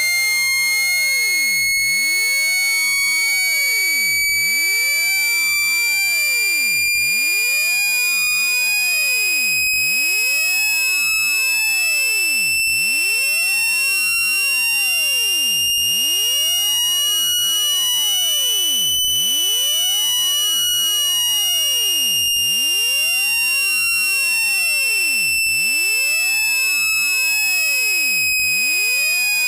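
Electronically generated tone for clearing water from a phone speaker: a loud, shrill, buzzy tone held without a break, its pitch slowly rising until about two-thirds of the way through, then easing slightly back down.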